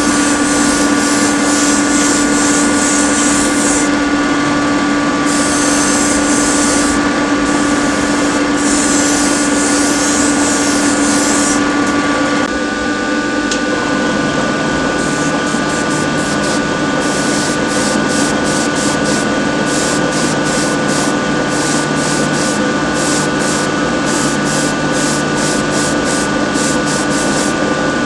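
Paint spraying onto a diecast model car body and wheel, heard as bursts of hiss. There are three long bursts of a few seconds each in the first half, then many short quick bursts. Underneath runs a steady motor hum whose pitch shifts about halfway through.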